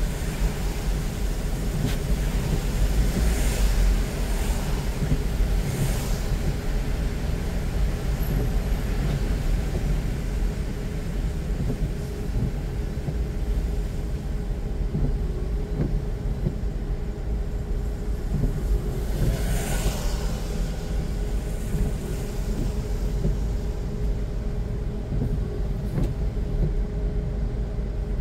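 Car driving through city streets: a steady low rumble of engine and road noise, with other vehicles swishing past a few seconds in, again around six seconds, and once more past the middle.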